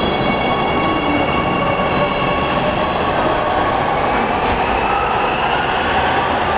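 Ui-Sinseol Line light-metro train running past in an underground station and off into the tunnel. It makes a loud, steady rumble of wheels on track, with thin high squealing tones early on and a faint rising whine near the end.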